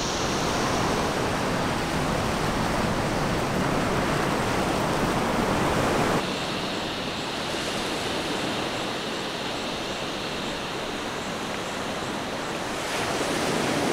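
Ocean surf breaking and washing on a beach, a steady rushing noise. It drops a little about six seconds in and rises again near the end.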